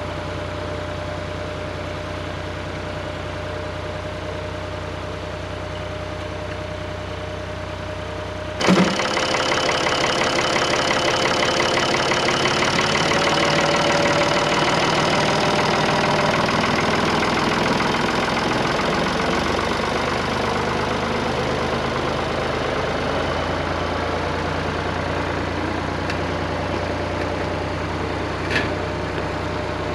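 Tractor engine running steadily at a low idle. About nine seconds in there is a sharp knock, and after it the sound turns louder and busier, with a fast rattling clatter of machinery running under the engine, as of the tractor and planter at work. A short click comes near the end.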